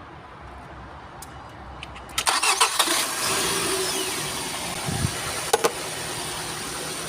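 Nissan X-Trail T30 engine cranking briefly on the starter about two seconds in, then catching and settling into a steady idle: the car starting again after its no-start fault has been fixed.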